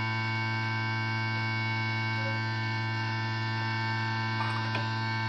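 Steady electrical mains hum, a low tone with many higher overtones held level throughout. Two faint light clicks come near the end.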